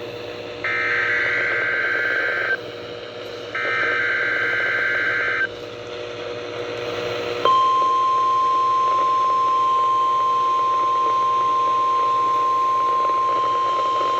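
Emergency Alert System broadcast on NOAA Weather Radio, heard through a radio receiver. Two SAME header data bursts play, each a buzzy digital warble lasting about two seconds, over static hiss and a faint hum. About seven and a half seconds in, the steady 1050 Hz weather radio alert tone starts and holds.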